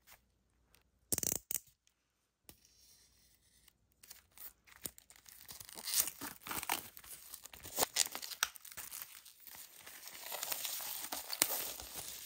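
Clear plastic shrink-wrap being torn and peeled off an album: a short tearing sound about a second in, then dense crinkling and crackling of the plastic from about four seconds in.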